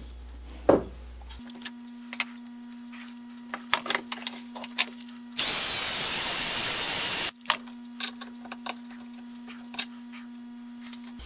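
DeWalt cordless drill with a socket running a bolt into a cast-iron rod cutter frame, a steady run of about two seconds. Before and after it come scattered clicks and knocks of metal parts being handled.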